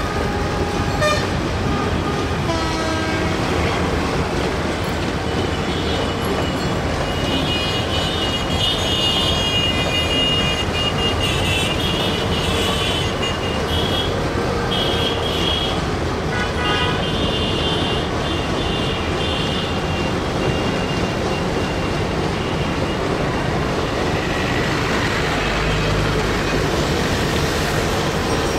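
Busy road traffic over a steady low rumble, with vehicle horns honking again and again through the middle stretch, while a long container freight train rolls slowly past.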